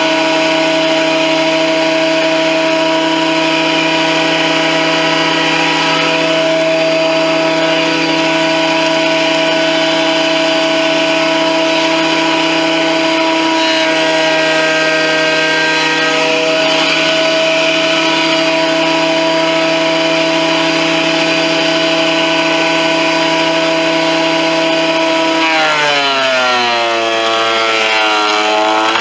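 Performax 12-1/2-inch, 15-amp benchtop thickness planer running with a loud, steady whine. About 26 seconds in, its pitch sags and then climbs back as a board feeds through and the cutterhead takes load.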